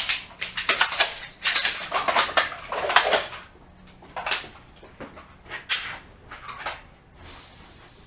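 Metallic clicks and clacks of several pistols being loaded: magazines seated and slides racked along the firing line. The clatter is busiest in the first three seconds or so, then thins to a few scattered clicks.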